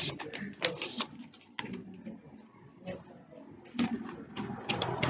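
A sheet of paper rustling and crinkling as it is folded and creased by hand, with scattered sharp crackles in irregular bursts, busiest near the start and the end.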